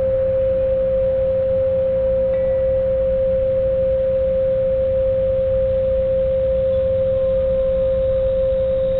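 A single steady pure tone held without a break or change in pitch, over a low, even drone underneath.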